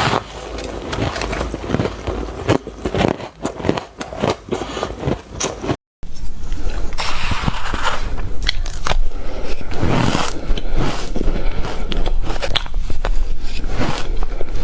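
Ice being bitten and chewed close to the microphone: repeated sharp crunches and crackles. About six seconds in, the sound breaks off briefly and a different eater's denser, scraping crunching takes over.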